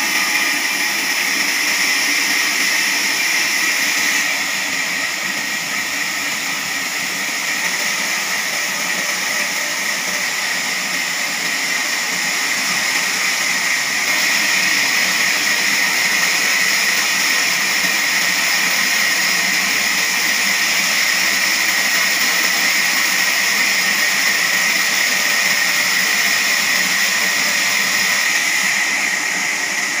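Large horizontal band sawmill blade cutting through a big log, a steady high hissing whine of the blade in the wood that shifts slightly in level a few times.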